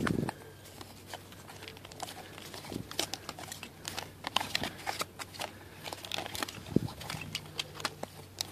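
Scattered light clicks and crinkles of hands handling a swamp cooler hose valve and its cardboard packaging tag against a brass faucet.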